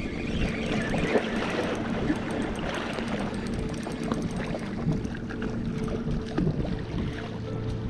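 Sea water lapping and sloshing against shore rocks, with wind buffeting the microphone.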